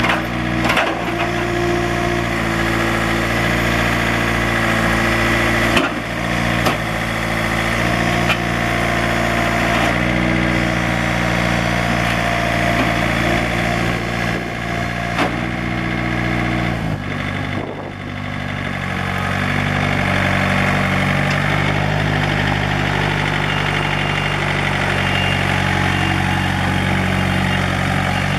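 John Deere 110 compact tractor loader backhoe's diesel engine running steadily, with a few sharp clunks from the machine. About seventeen seconds in the engine note changes and dips briefly, then settles into a steady run again.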